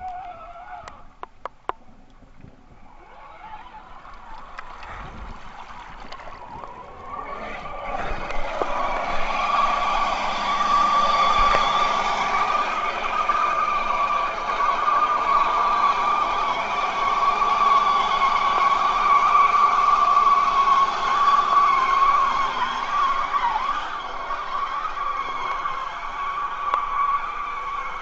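Electric motor and gears of a scale RC 4x4 crawler whining steadily, growing louder about eight seconds in and holding a high, slightly wavering pitch. A few sharp clicks come in the first two seconds.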